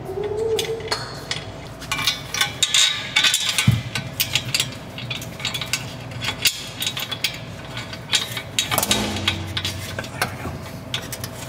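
Metal exhaust parts clinking and knocking together as a flange joint and a hanger bracket are handled and fitted under the car, with scattered sharp clicks, busiest a couple of seconds in.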